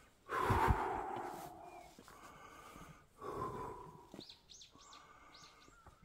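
Two heavy exhaled breaths near the microphone, the first long and louder, then a small bird chirping repeatedly, short high notes about two or three a second, in the second half.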